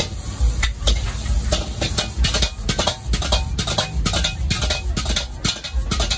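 Metal ladle clanking and scraping against a steel wok in quick, irregular strokes as fried rice is stir-fried and tossed, over the steady low rumble of a gas wok burner.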